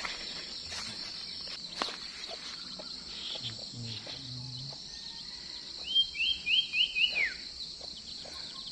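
Insects keeping up a steady high-pitched buzz, with a bird calling a quick run of about five falling chirps about six seconds in.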